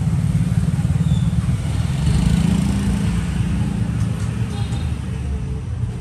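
A vehicle engine running close by: a low, pulsing rumble that swells about two seconds in and eases off slightly near the end.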